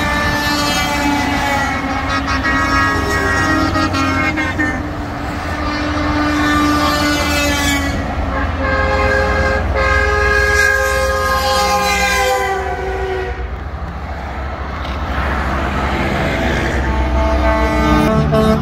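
Semi-truck air horns sounding long, overlapping blasts, several at once, some dropping in pitch as the trucks pass, over the low rumble of heavy highway traffic.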